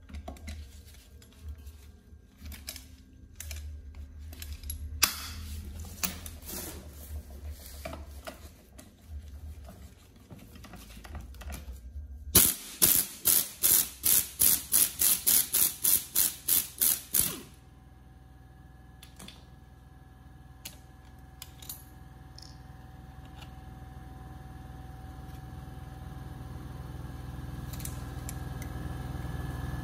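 A ratchet clicking quickly, about four clicks a second for some five seconds, as it turns a bolt on the front wheel hub. Before it come scattered clinks of metal tools being handled, and after it a steady hum that slowly grows louder.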